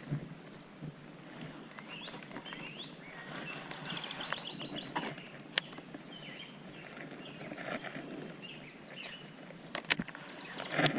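Birds calling in the background over faint outdoor noise: short, rising chirps and a rapid trill of repeated notes. A few sharp clicks sound about halfway through and near the end.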